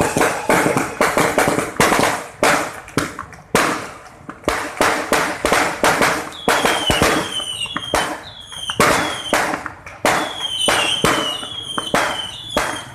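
Aerial fireworks going off in a rapid, continuous series of sharp bangs and pops. In the second half, short falling whistles sound between the bangs.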